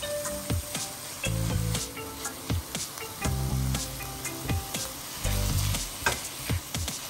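Minced beef and garlic sizzling in butter in a frying pan, stirred with a silicone spatula that clicks and scrapes against the pan. Background music plays underneath, with a low note repeating about every two seconds.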